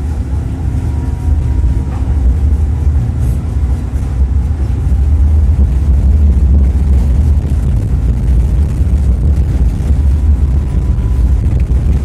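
Tatra T3SUCS tram running along the track, heard from inside the car: a loud, steady low rumble of the wheels on the rails and the rattling body.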